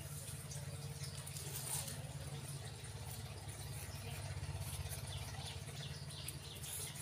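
Quiet ambient background: a steady low hum, with faint, quick high-pitched chirps and ticks in the second half.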